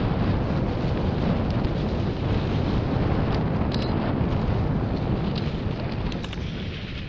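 Wind buffeting the camera microphone and mountain-bike tyres rolling over dry leaf litter on a forest trail, with scattered sharp clicks and rattles from the bike. The rush eases near the end.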